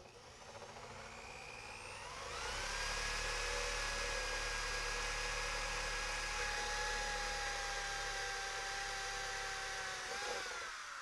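Corded electric drill cutting a hole through the wall of a plastic rain barrel. It spins up over the first two seconds, runs with a steady whine for about eight seconds, then winds down with a falling pitch near the end.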